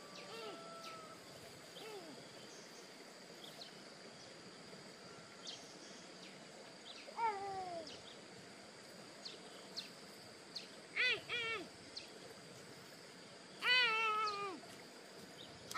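A young animal crying in several short whining calls that fall in pitch: a faint one early, louder ones about seven and eleven seconds in, and the longest near the end.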